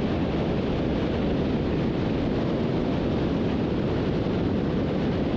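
Beech 18's twin radial engines running steadily at high power during the climb after takeoff, a dense, even drone with most of its weight in the low end.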